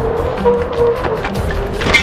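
Background music with a low, repeating beat and held notes; a sharp hit sounds near the end.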